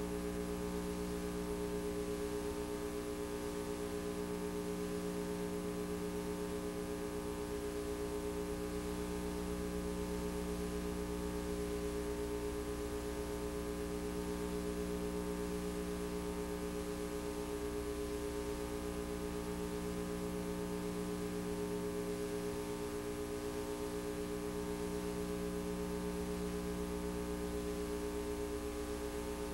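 Steady electrical hum made of several fixed pitches over faint hiss, with no other sound: the blank audio track of a VHS tape transferred with no recorded sound.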